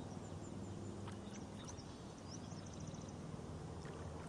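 Woodland ambience: a steady low hum under a few faint, short bird chirps and one quick high trill about two-thirds of the way through, with a few faint clicks.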